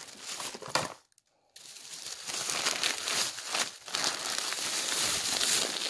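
Plastic bags and snack wrappers crinkling as they are handled, in irregular rustling bursts. The sound drops out completely for about half a second about a second in.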